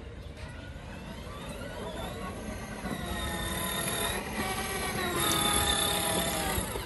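Children's 12 V electric ride-on Bugatti Divo driving under remote control, its two electric motors and gearboxes whining. The whine rises in pitch as it picks up speed, dips briefly about four seconds in, then returns higher and louder.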